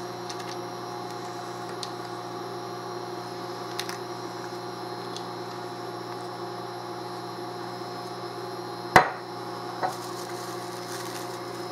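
Steady electrical hum with several evenly spaced tones from a portable induction cooktop that is on and heating a pan. A single sharp knock comes near nine seconds in, with a few faint clicks.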